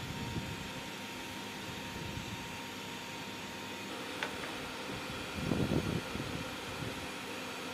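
Steady hum and airflow hiss of running ventilation equipment, with faint steady tones. There is a single click about four seconds in and a short, louder low rustle at about five and a half seconds.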